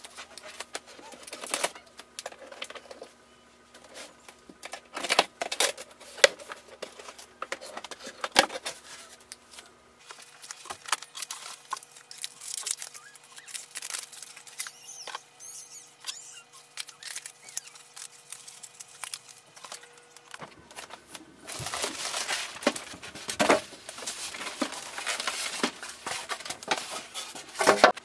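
Cardboard box being unpacked: scissors cutting the packing tape and cardboard and paper being handled with scrapes and knocks. In the last several seconds a plastic bag crinkles as it is pulled around.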